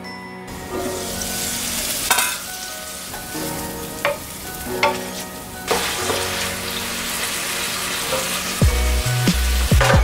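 Beef, onion and carrot sizzling as they are stir-fried in a nonstick frying pan, with a wooden spatula scraping and knocking against the pan a few times. Music with a deep beat comes in near the end.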